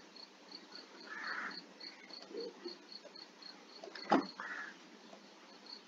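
A cricket chirping steadily and faintly, short high chirps about three to four a second. There is a single sharp knock about four seconds in.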